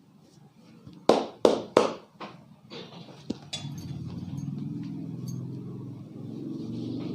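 Three sharp hand smacks of a head massage in quick succession, followed by a few softer taps. From about three and a half seconds in, a steady low motor hum sets in and carries on.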